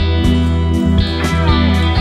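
Music: a guitar song with regular strums over deep, sustained low notes.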